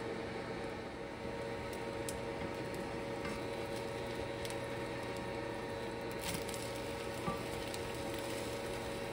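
Thin sheet of beaten egg frying in oil in a nonstick pan, sizzling steadily, with a few light clicks of a slotted spatula touching the pan.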